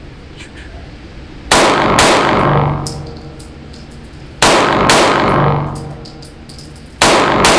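CZ P09 Nocturne compact 9mm pistol fired in three quick pairs (hammered pairs), two shots about half a second apart, each pair roughly three seconds after the last. Each shot is a sharp bang with a long echo off the concrete walls of an indoor range.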